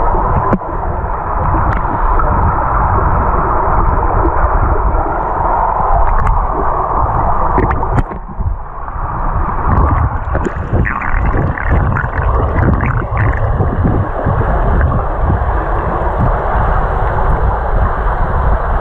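Muffled underwater rushing and rumble of pool water, picked up by a camera held underwater. A few sharp clicks stand out, and there is a short stretch of crackling about eleven seconds in.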